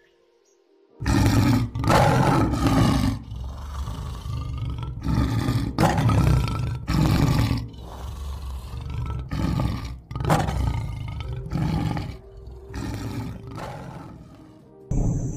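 Lion roaring: after a second of near silence, a run of about ten loud roars, some long and some short, follows in quick succession and stops shortly before the end.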